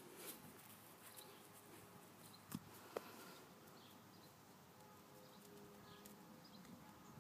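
Near silence: faint room tone with two soft clicks about two and a half and three seconds in.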